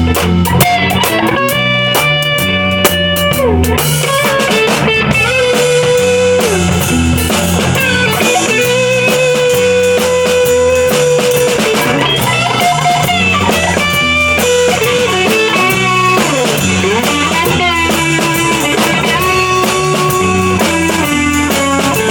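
Instrumental rock jam: an electric guitar plays held, bending lead notes over a repeating looped bass-and-chord pattern, with a drum kit keeping time underneath.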